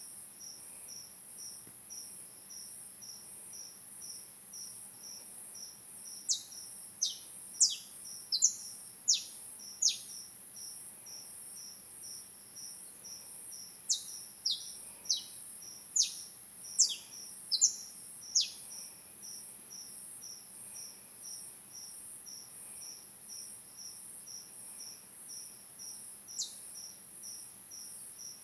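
A cricket chirping steadily in short, even pulses, about two and a half a second, over a constant high insect hiss. Loud, sharp, downward-sliding bird chirps cut in, in two bursts of several calls each, with one more near the end.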